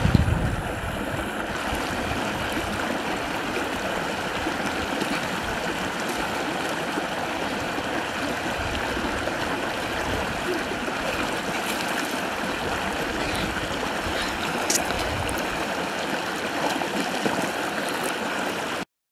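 Shallow river flowing over granite ledges in a steady wash of water sound, which cuts off suddenly near the end.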